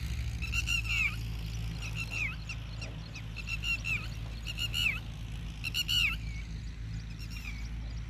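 Red-wattled lapwings giving repeated shrill alarm calls, short runs of sharp notes about once a second: the birds mobbing dogs that threaten their eggs.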